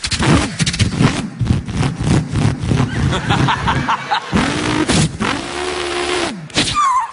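A man imitating a car engine with his voice: a run of short rising revs broken by quick gear-change gaps, then a longer held note.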